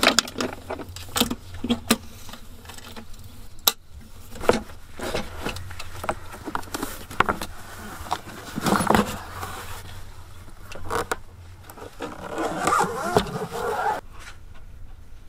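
Clicks, knocks and scraping of a folding portable solar panel being handled and packed into its padded carrying case, the louder knocks coming in irregular bursts.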